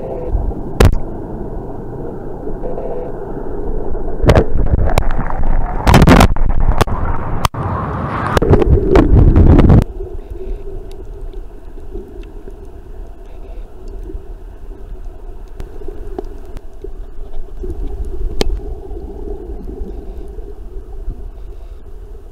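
Water noise picked up by an underwater camera: rushing and bubbling with sharp clicks and knocks for about the first ten seconds, then dropping off suddenly to a quieter, steady rumble.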